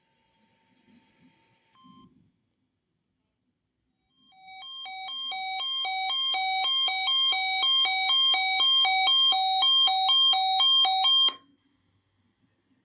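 Weather radio alert alarm: a beep that alternates between a low and a high pitch, about two cycles a second, with a buzzy edge. It starts about four seconds in, grows steadily louder and stops abruptly after about seven seconds. It is set off by the coded header of the NOAA Weather Radio weekly test.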